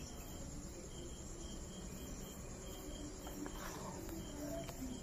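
Quiet background with a faint hiss and a faint, evenly repeating high chirp, like an insect, plus a few soft ticks near the end.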